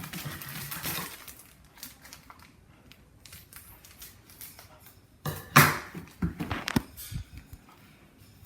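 Foil seasoning sachet being handled, torn open and emptied: crinkling and scattered clicks, with a louder crinkle about five and a half seconds in.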